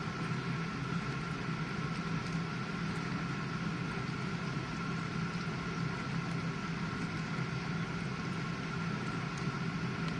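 GE dishwasher running mid-cycle: a steady motor hum with a thin constant whine above it.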